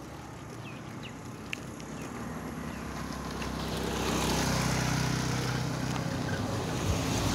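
A motor vehicle engine running, growing louder over the first few seconds as it comes close, then holding steady.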